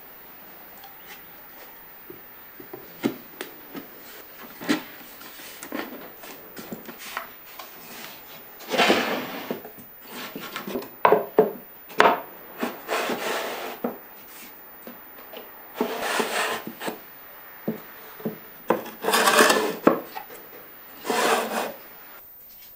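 Wooden drawers sliding in and out of the grooved slots of a plywood box: wood scraping on wood in about five strokes of a second or so each, after a run of light knocks and taps as the pieces are handled.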